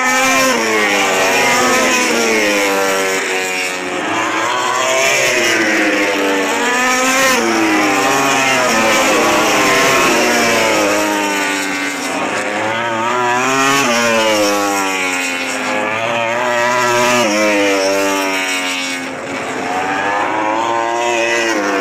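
Several MotoGP racing motorcycles at full throttle, steadily loud. Their overlapping engine notes repeatedly rise through the revs and drop back at each gear change.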